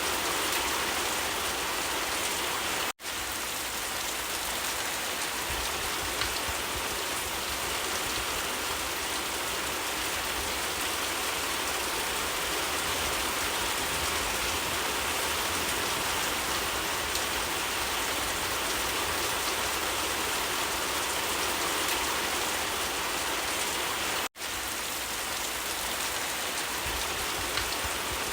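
Steady rain falling, an even hiss of many drops, that cuts out for an instant twice: about three seconds in and near the end.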